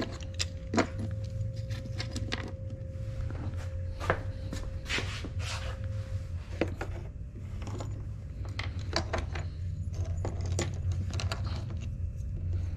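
Small metal hardware (bolts, nuts and washers) being handled and picked through in a parts tray, an irregular scatter of light clinks, taps and scrapes, over a steady low hum.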